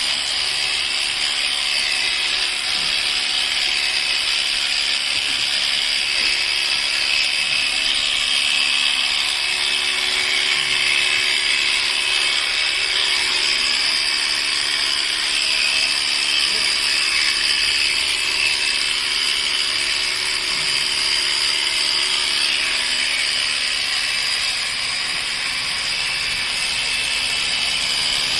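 Electric sheep-shearing clippers running steadily while trimming a sheep's wool.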